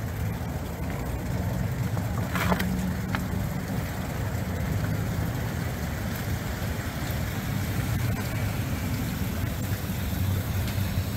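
Steady low engine rumble, with a sharp knock about two and a half seconds in and a fainter click just after.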